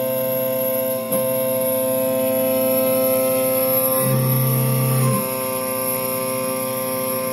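Ghost Gunner 3S desktop CNC mill running while it cuts a stainless steel slide: a steady hum of layered machine tones from the spindle and stepper motors. The tones ramp and change pitch briefly about a second in, and again for about a second near the middle, as an axis moves.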